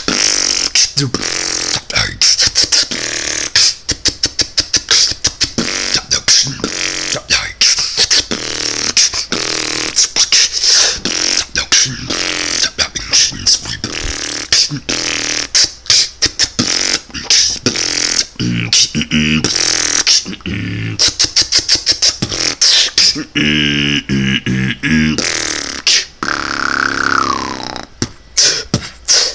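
Solo beatboxing: a fast vocal drum beat of kick, snare and hissing hi-hat sounds. About two-thirds of the way through come pitched, hummed tones, followed by a short falling glide.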